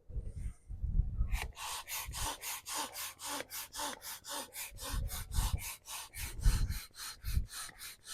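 Inflatable kayak's hand pump pumping air into one of the hull chambers: quick, even hissing strokes, about four a second, starting about a second and a half in, with a few low thumps.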